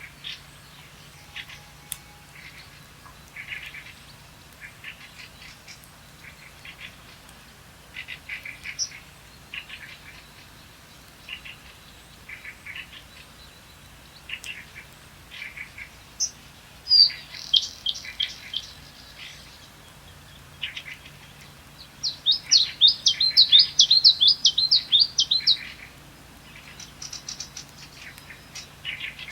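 Wild songbirds calling in a forest: scattered short chirps throughout, a louder run of quick notes about 17 seconds in, and a loud, fast trill lasting about three seconds from about 22 seconds in.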